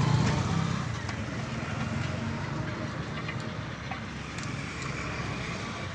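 A motor vehicle running: a steady low hum under background noise, loudest in the first second and easing off a little, with a few faint clicks.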